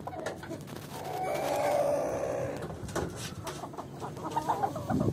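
Chickens clucking, with one longer call lasting about two seconds, then shorter broken clucks near the end.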